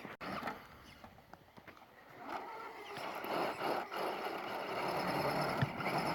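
Small electric RC rock crawler driving over rock: a faint high motor-and-gear whine with tyres scrabbling and grinding on the stone, starting about two seconds in and growing louder.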